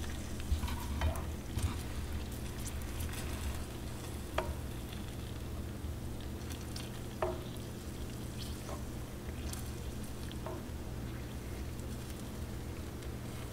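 Sugar syrup for tanghulu bubbling and sizzling in a frying pan while a metal spoon ladles it over a skewer of grapes and pineapple. About four short clicks of the spoon against the pan or skewer stand out over the steady sizzle.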